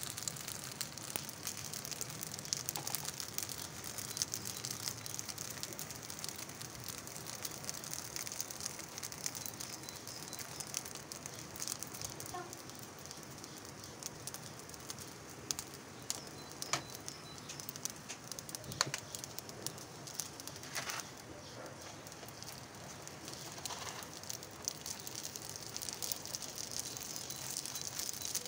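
Meat-filled gözleme dough frying in a hot nonstick pan: a steady sizzle with scattered small crackles and a few sharper pops.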